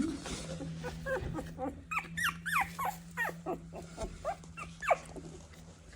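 Shorkie puppies squeaking and whimpering: a run of short high-pitched cries that swoop in pitch, thickest from about two to five seconds in. A steady low hum runs underneath.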